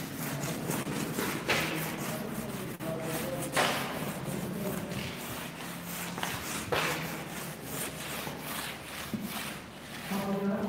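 Chalkboard eraser wiping chalk off a blackboard in repeated rubbing strokes, a few harder swipes standing out.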